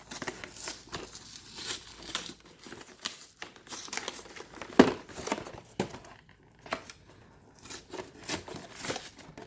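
Plastic wrapping being torn and crinkled off a cardboard collection box, in irregular rustling strokes, with one sharp click about five seconds in.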